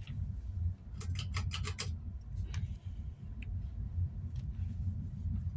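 Hunter Preference ceiling fan running up on high speed under a steady low rumble, which includes a loud furnace running. About a second in there is a quick run of six or seven light clicks, with a few single ticks later.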